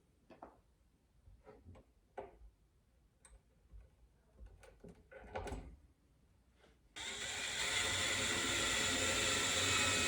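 Light clicks and knocks of hands working the drawer and slide hardware. About seven seconds in, a power drill runs steadily for about three and a half seconds, driving a screw into the drawer slide.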